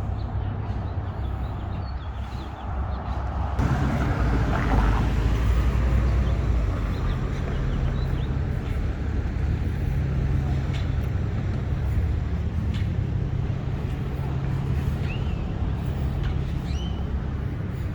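Street traffic: a vehicle engine running nearby with a steady low hum, getting louder about three and a half seconds in.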